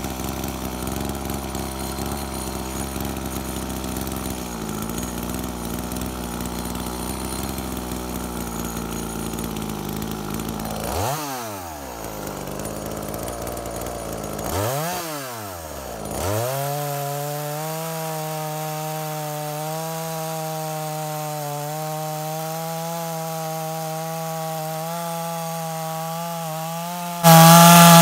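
Two-stroke chainsaw (49.3 cc engine) running, its replacement carburetor still not properly adjusted. Twice the engine speed sags deeply and climbs back, about 11 and 15 seconds in, then it holds a steady high speed. Near the end it gets suddenly much louder as the chain cuts into wood.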